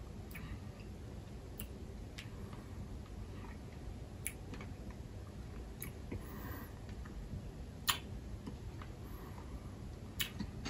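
A person chewing a sugar-coated Non Stop chocolate candy, faint soft chewing broken by a few sharp crunches, the loudest about eight seconds in.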